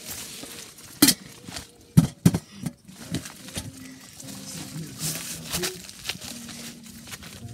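Handling noise on a phone microphone as it is jostled against clothing: rustling and three sharp knocks in the first few seconds, then faint steady low tones in the background.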